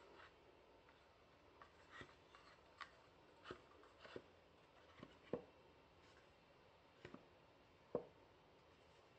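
Faint taps and knocks of a paulownia-wood box being handled and turned over on a wooden table, scattered irregularly, with two louder knocks about five and eight seconds in.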